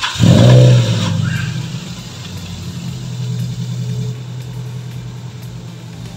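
Car engine starting: it catches with a loud rev flare about half a second in, then settles into a steady idle.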